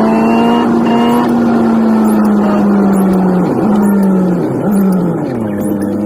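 Nissan 180SX's engine running steadily under way, its pitch dipping briefly twice past the middle and settling lower near the end.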